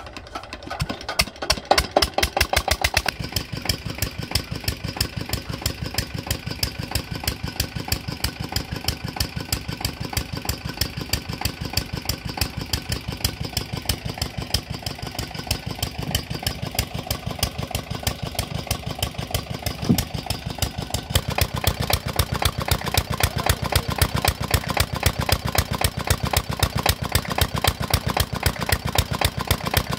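Chinese 16 hp single-cylinder diesel engine of the 'Peter' type, driving a tube-well irrigation pump, comes up to speed in the first couple of seconds and then runs steadily with an even, rapid beat. It gets louder and heavier about two-thirds of the way through.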